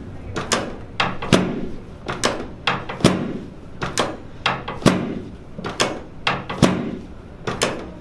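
Chiropractic drop table's pelvic section clacking down again and again, about once a second, under hand thrusts on the low back and sacrum.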